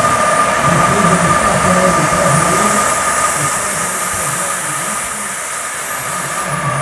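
Model jet turbine of a scale F-5 Tiger RC jet running on the ground: a steady whine over a hissing rush. A high whistle in the turbine climbs about three seconds in, holds, and falls back near the end.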